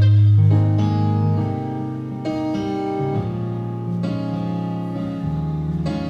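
Live blues band playing: keyboard chords held over strong sustained bass notes, with electric guitar, the chords changing every second or two.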